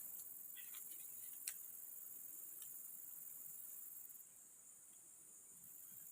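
Near silence with a faint, steady, high-pitched insect drone. A couple of small faint clicks come about one and a half and two and a half seconds in.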